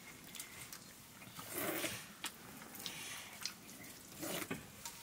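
Eating by hand from metal plates: fingers scraping and pressing rice against the plates, with scattered light clicks and clinks. Two brief louder noises stand out, about a third of the way in and near the end.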